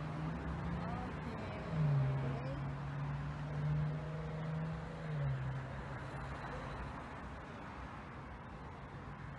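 A vehicle engine running close by: a low steady hum that drops in pitch about two seconds in and again about five seconds in, then fades away.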